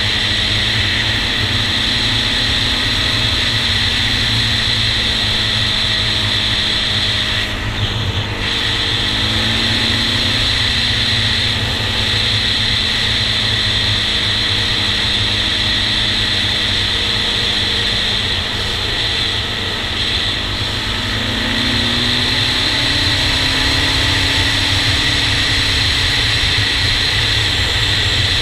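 Honda TRX400EX quad's single-cylinder four-stroke engine running at speed, with wind rushing over the helmet-mounted microphone. The throttle eases briefly about eight seconds in, and the engine pitch rises twice, around ten seconds in and again a little after twenty, as the quad accelerates.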